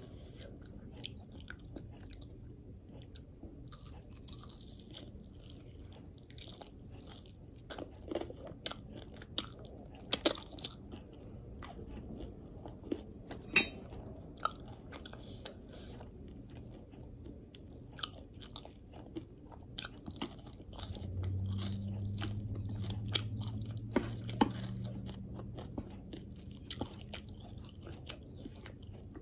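Close-up mouth sounds of chewing and biting crispy, sauce-glazed Korean fried chicken, with scattered sharp crunches and wet clicks. A low steady hum comes in for several seconds about two-thirds of the way through.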